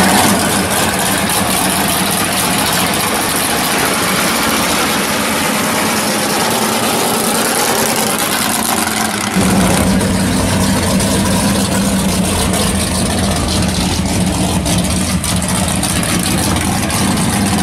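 Drag-race cars' V8 engines idling. About halfway through, the sound cuts to a louder, deeper idle.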